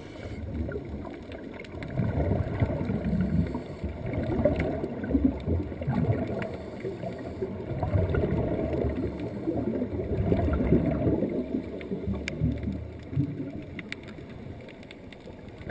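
Muffled underwater noise picked up by a submerged camera: a low churning rumble of moving water and air bubbles that swells and fades, with a few faint clicks.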